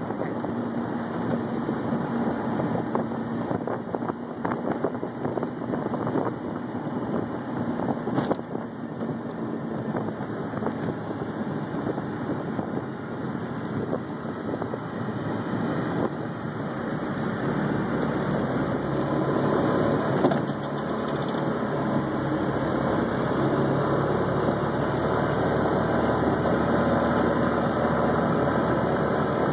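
Small engine of an open three-wheeled scooter car running steadily on the move, under a rushing noise of wind and road. About halfway through, the engine drone grows steadier and a little louder.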